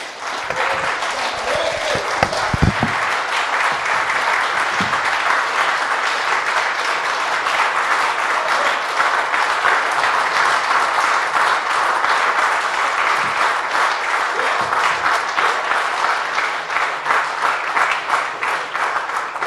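A roomful of people applauding: dense, steady clapping that starts at once and tails off near the end.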